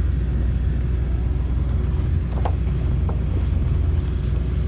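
Boat motor running steadily with a constant low rumble and a steady hum, two short chirps sounding around the middle.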